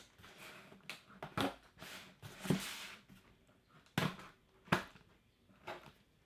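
Cardboard shipping box being handled and opened by hand: several sharp knocks and taps, with a rustling, scraping stretch about two and a half seconds in.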